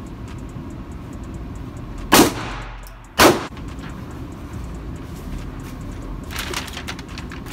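Two gunshots about a second apart, each with a sharp crack and a reverberating tail, echoing in an indoor shooting range over a steady low background rumble.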